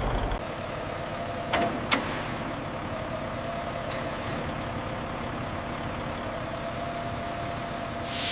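Heavy truck running with a steady hiss. A low rumble drops away shortly after the start, and two sharp clicks come in quick succession at about a second and a half in.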